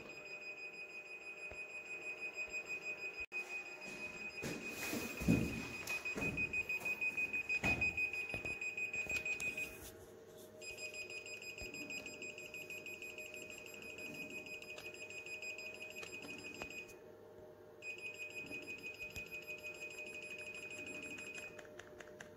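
Handheld Novacom TV/satellite signal meter beeping: a rapid, steady train of high beeps that stops briefly twice and resumes. Faint low rumbles of handling a few seconds in.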